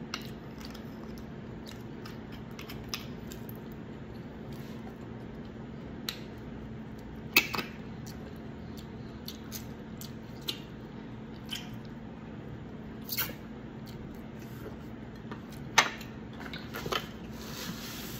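Close-up eating sounds: scattered wet chewing and lip smacks, with small clicks of a spoon scraping marrow from a beef shank bone, over a faint steady hum.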